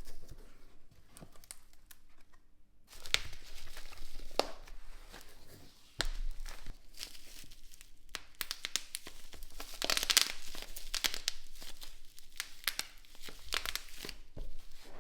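Packaging being unwrapped and torn open: crinkling and tearing with scattered sharp clicks. It is quieter for the first few seconds and busiest near the middle.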